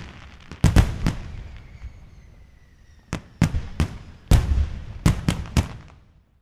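Fireworks going off: a string of sharp bangs in two clusters, the second beginning about three seconds in, each bang trailing off in a low rumble, with a faint high whistle between the clusters.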